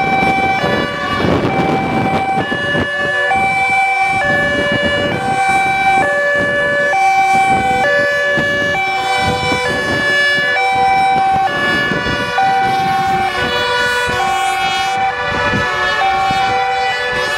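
Sirens of several emergency vehicles in a convoy sounding together, each a two-tone siren stepping between a high and a low note, overlapping out of step. Engine and road noise run underneath.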